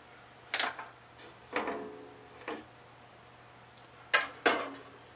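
About five separate knocks and clinks of hard objects, most likely metal, being handled and set down on a workbench, two of them with a short metallic ring, over a faint steady low hum.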